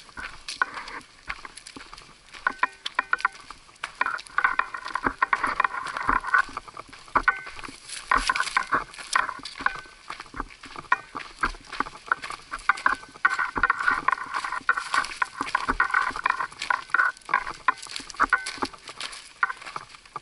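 Footsteps of a hiker and his guide dog crunching and clicking over a loose, rocky gravel trail, with the dog's harness and pack rattling in a few stretches.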